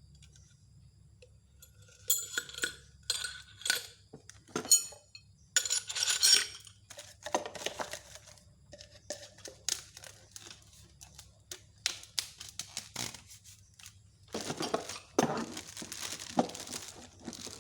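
Packaging being handled: plastic or paper crinkling and tearing in irregular bursts, with small clicks and clinks of hard parts.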